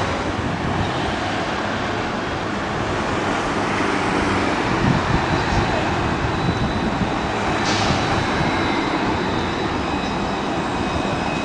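Alstom Citadis low-floor tram approaching along street track, over a steady hum of city traffic. A thin high whine comes in about halfway and grows louder toward the end as the tram nears.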